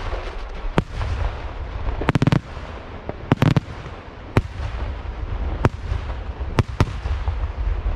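Aerial firework shells bursting in a display: a dozen or so sharp bangs at irregular intervals, some coming in quick clusters of three or four, over a steady low rumble.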